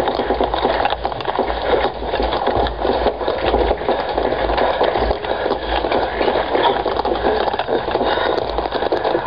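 Continuous crackling, rustling noise with dull low thumps throughout: handling noise on a handheld camera's microphone as it is moved about.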